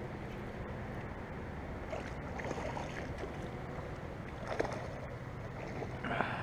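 Steady low rush of water and light wind around a kayak on a pond, with a few faint short knocks as a fishing rod is handled and reeled.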